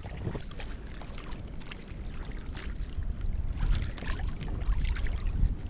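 Sea water sloshing and lapping around a fishing kayak, with wind rumbling on the microphone: a steady noisy wash.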